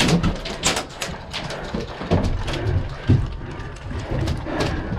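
Scattered airsoft gun shots: sharp cracks at irregular intervals, a quick cluster near the start and single shots later, over a steady low rumble of movement on the camera microphone.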